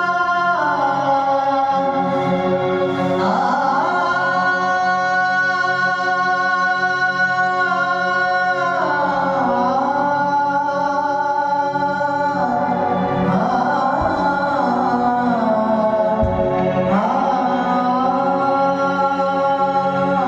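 A man singing long held notes that slide to a new pitch every few seconds, over a steady drone.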